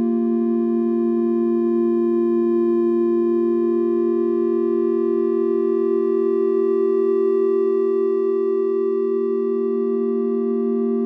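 Background music: a sustained synthesizer drone, two low notes held steady with fainter higher tones above them.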